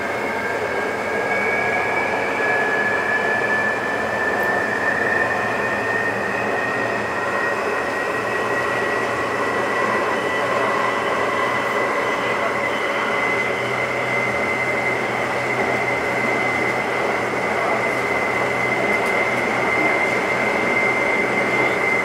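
New Taipei Metro Circular Line train running at speed, heard from inside the front car: steady rumbling running noise with a high motor whine that slowly rises in pitch as the train gathers speed.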